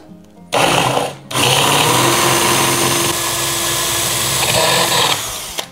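Bosch Professional GSB 18V-21 cordless drill boring a hole through a Nerf blaster's plastic shell: a short burst of under a second, a brief stop, then a steady run of about four seconds that trails off at the end.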